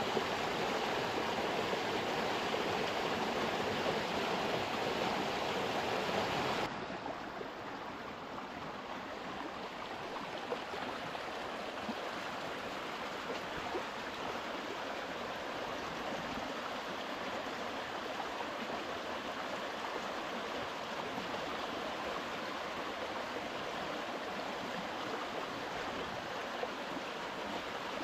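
A shallow river rushing steadily over stones. About seven seconds in it switches abruptly to a quieter, duller rush.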